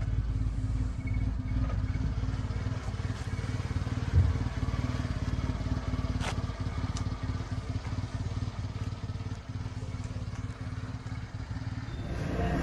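Subaru Sambar kei truck's 660 cc four-cylinder engine idling steadily. A brief low thump comes about four seconds in.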